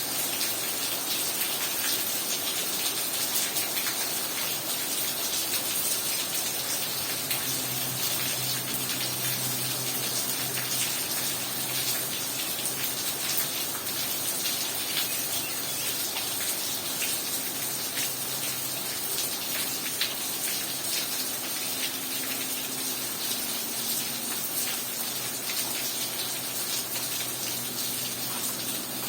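Heavy rain falling steadily, a dense patter of drops over a constant rushing hiss.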